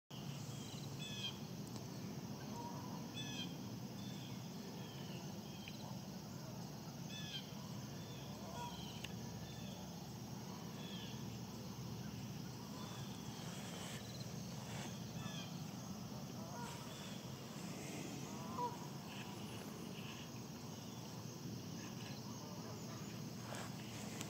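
Faint outdoor ambience: scattered short bird calls, some falling in pitch, over a steady low background noise.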